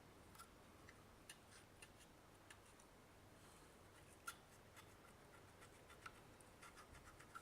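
Faint, irregular small clicks and scrapes of a tool working at the corroded battery contacts of a digital multimeter, with one sharper tick about four seconds in.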